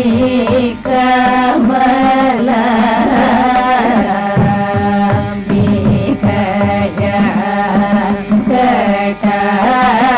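Carnatic vocal music: singing with gliding, ornamented notes over a steady drone, accompanied by hand-drum strokes.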